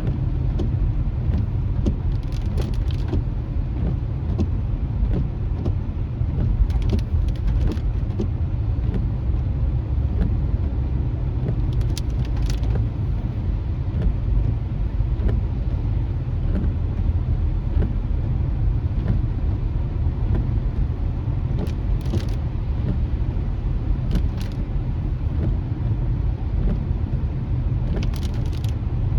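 Steady low rumble of a car driving on rain-wet streets, heard from inside the cabin. Brief hissing sounds come every few seconds.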